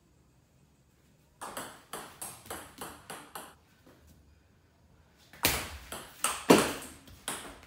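A table tennis ball being played. A run of quick light clicks starts about a second and a half in and fades out. After a short pause comes a rally of paddle strikes and bounces on the table, with the loudest hit about six and a half seconds in.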